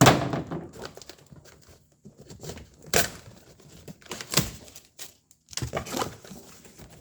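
A taped and stapled cardboard shipping box being pulled open by hand: tape tearing and cardboard scraping and crinkling. It comes in several short bursts, the loudest right at the start.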